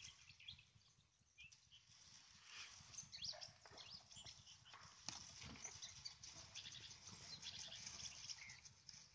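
Near silence, with faint scattered clicks and short high chirps throughout.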